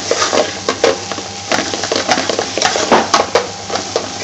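Potato strips being given a final mix in a sizzling aluminium frying pan, with irregular scrapes and clicks of metal on metal as the utensil and pan are worked.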